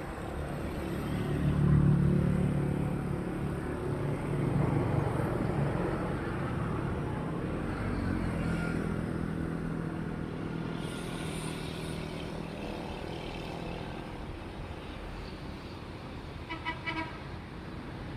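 Road vehicles passing with engine hum that swells about two seconds in and again near five seconds, then fades. A brief pulsing horn sounds near the end.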